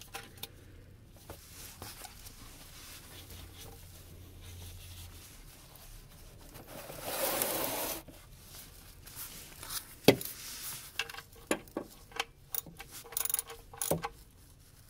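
Hands working under a car, a gloved hand and shop towel rubbing for about a second near the middle. About ten seconds in comes a sharp knock, followed by a scatter of light clicks and taps.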